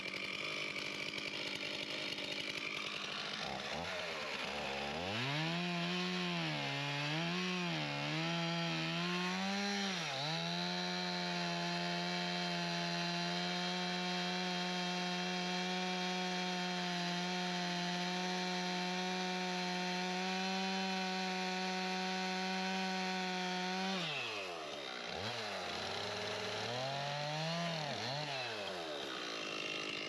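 Gas chainsaw's two-stroke engine revved up and down several times, then held at full throttle for about fourteen seconds while cutting into a log. It then drops back and is revved a few more times.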